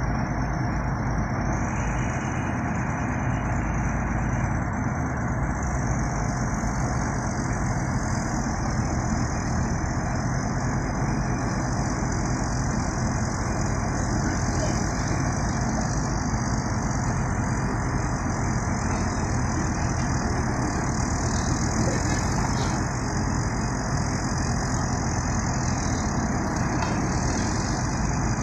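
Heavy diesel engine running steadily, with no pauses or sudden changes.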